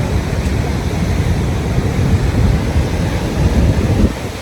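Ocean surf washing against the shore, mixed with wind buffeting the microphone: a steady, heavy low noise that eases briefly near the end.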